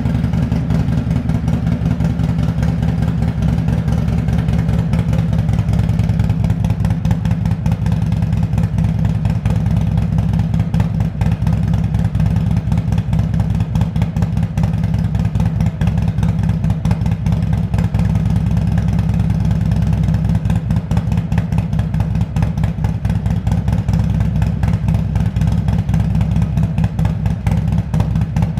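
Harley-Davidson Milwaukee-Eight 114 V-twin with an S&S 475C cam idling steadily through a Fuel Moto Jackpot 2-into-1 exhaust, a pulsing exhaust note in the first minute after a cold start.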